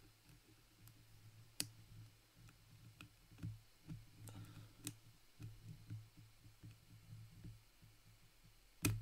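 Faint, scattered clicks of a lock pick in the keyway of an ASSA Twin 6000 pin-tumbler cylinder, presetting the gin driver pins into their counter-milling under light tension.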